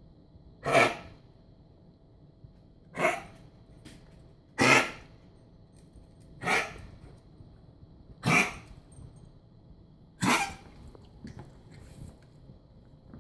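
Dog coughing in a persistent fit: six short, harsh coughs spaced about a second and a half to two seconds apart.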